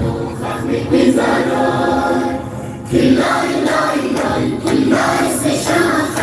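A choir singing a song in phrases of a second or two, as background music.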